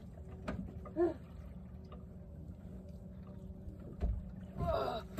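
Steady low rumble of a fishing boat sitting on the water, with a soft thump about four seconds in. Short vocal sounds come about a second in and again near the end.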